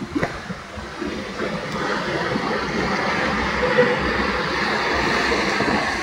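Rushing, splashing water of a river rapids ride around the raft, growing louder over the first two seconds and then holding steady.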